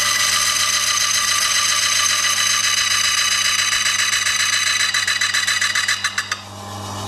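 Electric meat slicer's circular blade grinding against a block of frozen beef: a loud, high-pitched scraping over the motor's steady hum, the meat too firm for the blade to cut. Near the end the scraping breaks into a rapid flutter and stops suddenly, leaving the motor humming.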